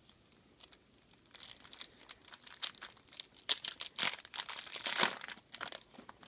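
Crinkling and tearing of a trading-card pack wrapper being ripped open by hand: a quick run of sharp crackles that grows busier and louder from about a second and a half in.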